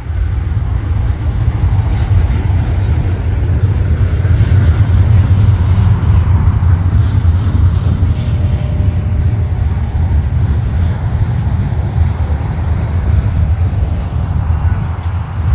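Long freight train of autorack cars rolling past at close range: a steady, loud low rumble of steel wheels on the rails.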